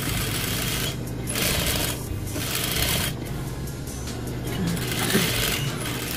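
Sewing machine stitching in short runs of about a second, stopping and starting several times while topstitching a seam.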